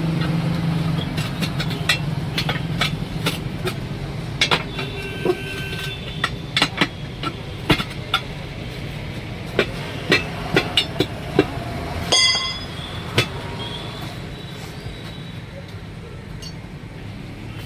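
Irregular sharp metal knocks and clinks from tyre-changing tools working on a wheel rim, over a steady low hum of traffic. A vehicle horn sounds briefly about twelve seconds in.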